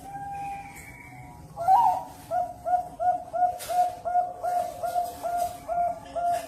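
Zebra dove (perkutut) singing: a held coo, then a louder note, then a long run of short, evenly repeated cooing notes at about three a second.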